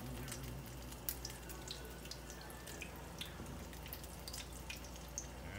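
Egg-battered chicken cutlets frying in hot oil in a pan: a steady sizzle with scattered crackles and pops.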